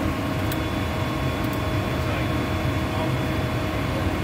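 Concrete pump truck running steadily, its diesel engine and hydraulics working the boom as it is raised and unfolded: a constant low rumble with a few steady whining tones over it.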